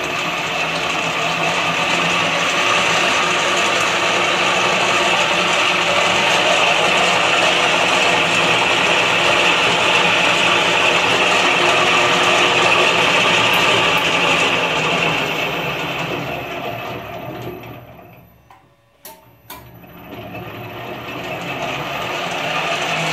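HMK-1901 planetary ball mill running steadily, then slowing to a stop about 18 seconds in, with a couple of clicks in the lull, before it starts up again and builds speed.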